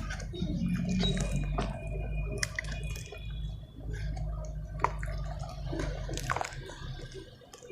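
Water-soaked pure cement crumbling and squishing, with scattered small crackles and drips over a steady low rumble.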